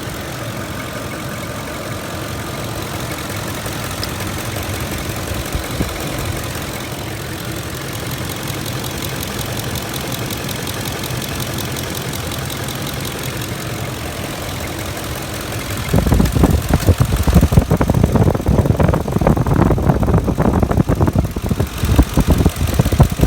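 2006 Ford F-150 engine idling roughly at about 625 rpm while hot, the rough idle shaking the truck. About sixteen seconds in, a much louder rumble with rapid uneven pulses takes over.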